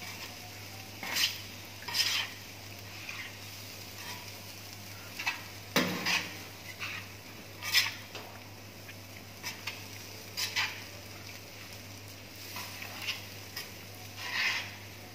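A metal kottu blade scraping and clinking on a flat-top griddle as chopped roti and vegetables are tossed and mixed, with a light sizzle. The strokes come a few at a time, irregularly, not as steady rapid chopping.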